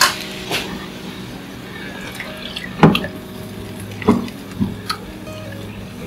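Raw eggs dropped from a bowl plopping and splashing into a pan of hot, bubbling poaching water: a handful of separate splashes, the loudest about three seconds in.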